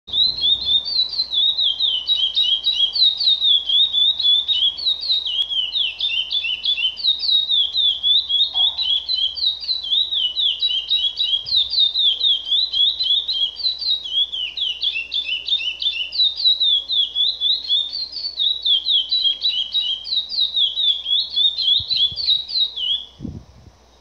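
Chestnut-bellied seed finch (curió) singing one long praia-style song, a continuous run of quick, varied high notes that stops about a second before the end.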